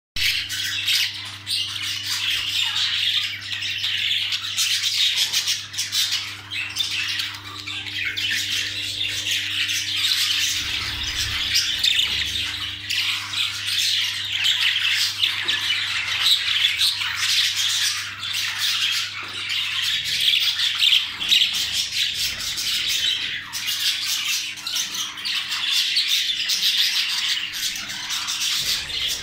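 Budgerigars squawking and chattering non-stop in a dense, continuous din, with a faint steady hum underneath.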